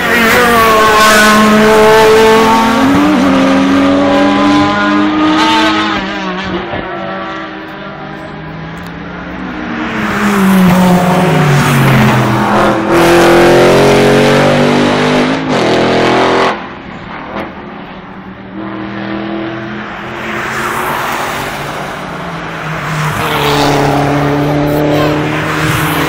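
Several GT race cars passing one after another through a bend, engines loud, their pitch dropping on the way in and climbing again as they accelerate away.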